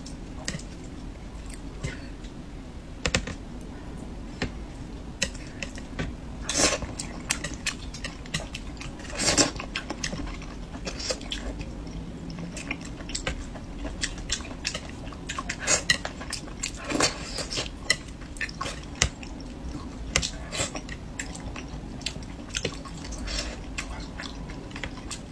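Eating sounds: cutlery clinking and tapping against a dish in a string of scattered sharp clicks, with chewing in between.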